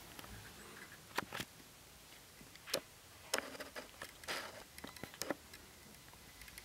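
Faint handling noise: a scattered handful of soft clicks and rustles, about eight spread over several seconds, in a quiet small room.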